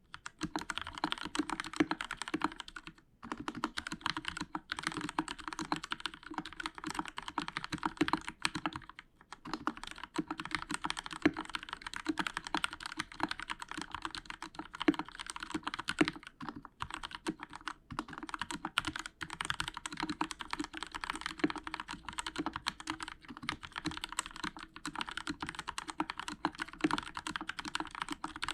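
Continuous fast typing on a Royal Kludge RK61 mechanical keyboard with linear Outemu Red switches, a dense stream of keystroke clacks with a few short pauses, about 3 and 9 seconds in. The case has foam under the PCB and stabilizers lubed with Krytox 205, which keeps larger keys from rattling.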